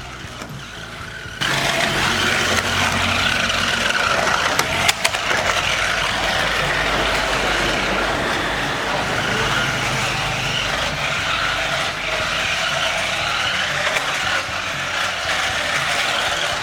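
Toy stunt RC car's electric drive motors and plastic gearboxes whirring as the car is driven. The whirring starts abruptly about a second and a half in, with a couple of sharp clicks a few seconds later.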